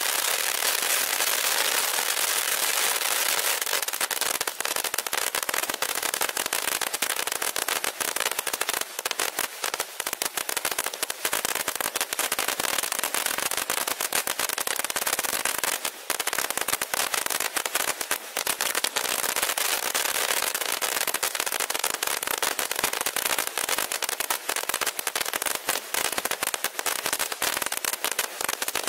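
Shogun SF895 Pop Corn Fountain firework burning, its spray of sparks and bursting stars making a dense, continuous stream of rapid pops and crackles over a steady hiss.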